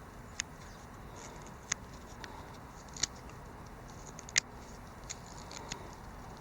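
Leatherman Wave+ multitool blade carving small chips from a wooden whistle's notch: sharp, separate clicks about once a second, the loudest about four and a half seconds in.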